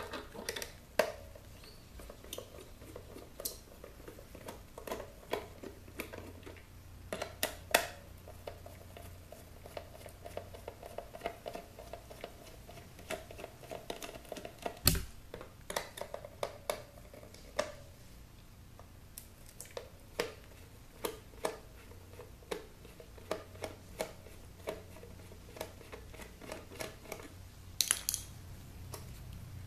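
Many small clicks, taps and scrapes of a Phillips screwdriver turning screws out of the plastic base of an electric hot water pot, with a few sharper knocks, one about halfway through and two near the end.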